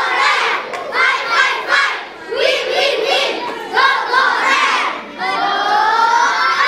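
A group of young boys chanting a scout cheer in unison: shouted phrases with short breaks between them, ending in one long drawn-out shout near the end.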